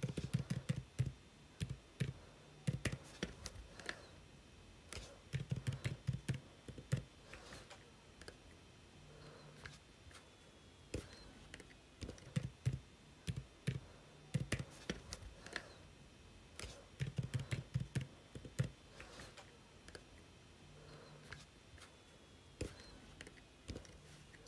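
Typing on a computer keyboard: short bursts of rapid keystrokes separated by pauses of a few seconds.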